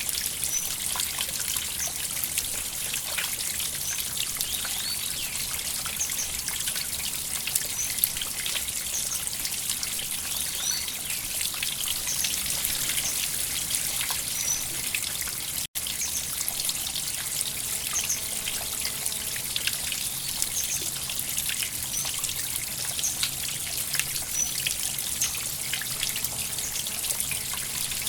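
Shallow river water trickling and babbling over stones in a steady, even stream, cutting out for an instant about halfway through.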